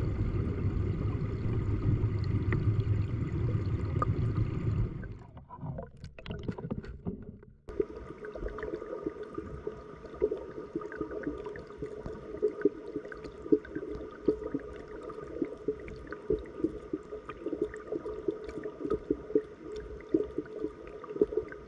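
Flowing mountain-stream water picked up by an underwater camera: a steady low rush, then after a short break about five seconds in, running water with many small clicks and pops from bubbles.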